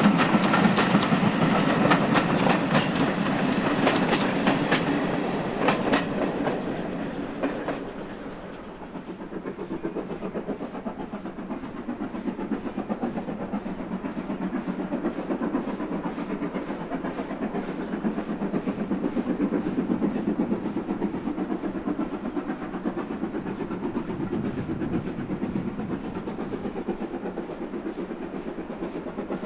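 Steam-hauled passenger coaches rolling past, wheels clicking over rail joints, fading away. About eight seconds in this changes to a GWR 5101 class large prairie tank locomotive, No. 5199, working hard as it approaches, with a steady rhythmic chuffing exhaust that slowly grows louder.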